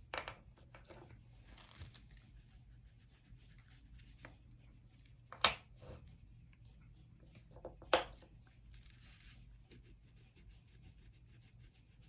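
Oil pastels scratching and rubbing on paper in short, faint strokes, with a few sharp clicks, the loudest about five and a half and eight seconds in.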